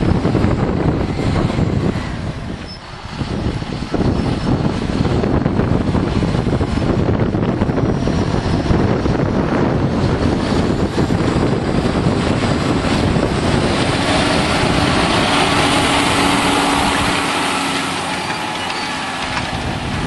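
John Deere 6630 tractor's diesel engine running steadily under load as it pulls a reversible plough, with wind buffeting the microphone. The engine's steady hum stands out more clearly in the second half as the tractor comes close.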